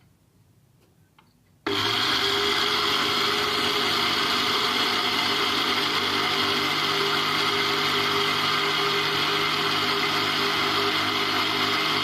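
Electric mixer grinder switched on about a second and a half in, then running steadily at full speed as it grinds dry roasted seeds and spices into a fine powder.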